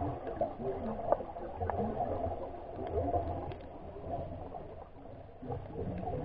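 Underwater reef ambience recorded from below the surface: a steady, muffled low rumble of moving water with scattered short clicks and crackles.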